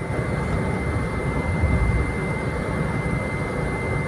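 Turbocharged, intercooled engine of a 2004 Ford Everest automatic pulling at highway cruising speed, heard from inside the cabin: a steady high turbo whistle over a continuous rumble of engine and tyres on the road.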